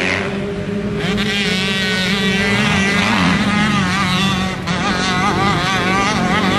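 Motocross bike engines running: one note wavers up and down repeatedly as the throttle is worked on the track, over a steadier engine note underneath.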